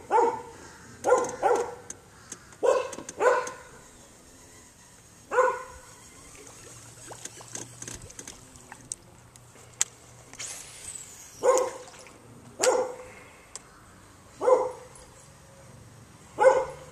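Dog barking from the houses along the canal: loud single barks and pairs of barks at irregular intervals, with a pause of several seconds in the middle.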